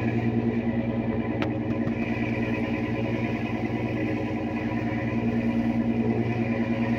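A boat's engine running steadily at sea, a low hum with a fast, even throb.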